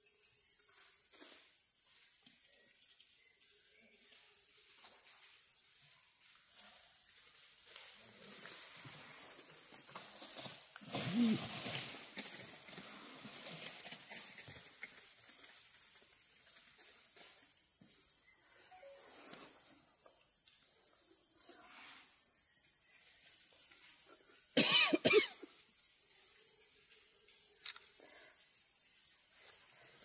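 Forest insects droning steadily at a high pitch, broken by two loud bursts: one about eleven seconds in, and a quick run of a person's coughs about twenty-five seconds in.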